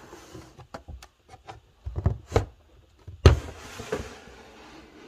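Plastic snake tub being slid along a rack: a run of knocks and clicks with short scraping, the loudest knock about three seconds in.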